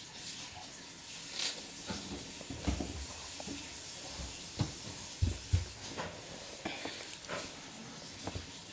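A baby sucking and gumming a chicken drumstick: scattered soft mouth clicks and smacks, with a few low thumps around the middle.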